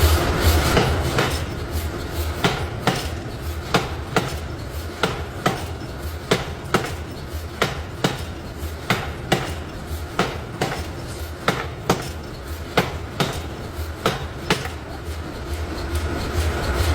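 Hammer blows striking metal, about two a second in a steady rhythm, over a low steady machine hum.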